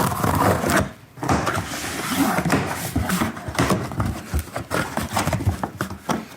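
Packaging and a new replacement CV axle being handled: rustling with a quick run of clicks and knocks, briefly quieter about a second in.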